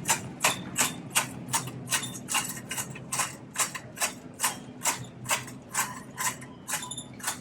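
Shopping cart rolling with a wheel that clunks about three times a second in a steady rhythm, like a train running over rail joints.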